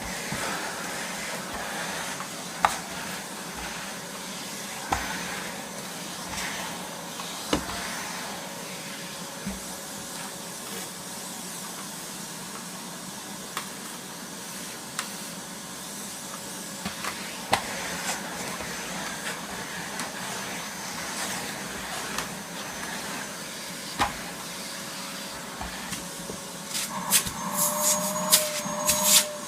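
1998 Numatic Henry vacuum cleaner running with a steady whine and hiss, with scattered sharp clicks as debris is sucked up the wand and hose, and a burst of louder clicks near the end. Its paper bag is full of fine dust, which costs it some suction.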